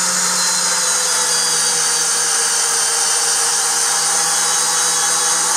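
DeWalt Atomic 20-volt brushless drill in low gear (speed 1) running steadily under load as it drives a 6-inch lag bolt down through stacked 2x4s, two of them pressure-treated, without stalling.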